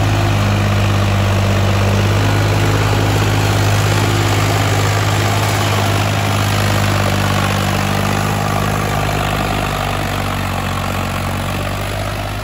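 Sonalika 50 RX tractor's diesel engine running steadily under load as it pulls a loaded trolley past, a steady low engine note that eases off slightly near the end.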